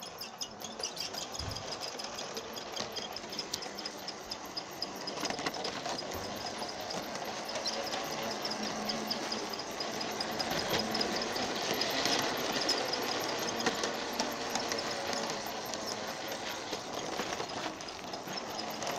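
Lionel G-scale Thomas the Tank Engine toy train running on its track: the electric motor and gears whir steadily, with scattered clicks from the wheels on the rails. It grows louder about a third of the way in as the engine passes close by.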